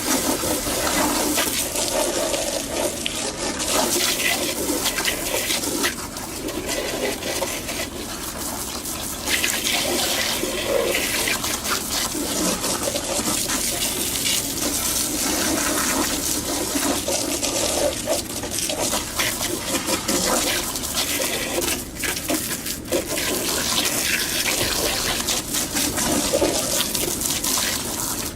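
Water spraying from a garden hose and splashing against a surface, rising and falling in level as the spray moves.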